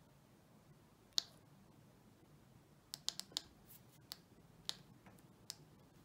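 Xiaomi M365 electric scooter's dashboard power button clicking as it is pressed by thumb: a single click, then a quick run of four about three seconds in, then a few more spaced apart. The button is faulty and won't reliably turn the scooter on or off, a fault the owner puts down to slight water corrosion.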